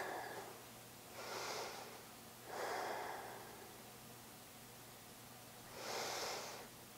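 A person breathing slowly and softly: an inhale, an exhale, then another inhale near the end.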